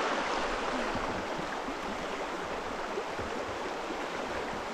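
River rapids rushing steadily around a kayak.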